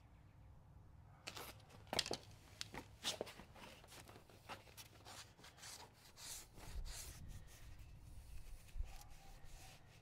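Faint, irregular scuffing and rubbing starting about a second in: a foam sponge applicator and gloved hand wiping adhesion promoter along a plastic front bumper lip lying on cardboard.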